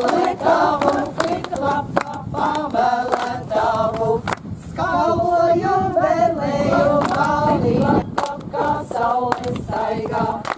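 Group of women singing a Latvian folk Easter swinging song unaccompanied, with hand claps to the beat.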